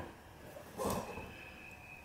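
Fencing pliers levering at a stubborn nail in a wooden window stop, with one short, faint scraping noise about a second in; the nail is held fast and resisting the pull.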